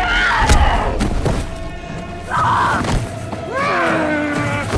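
Horror-film fight sound: heavy body thuds, the loudest about half a second in and another near three seconds, over a tense score with gliding, wailing tones.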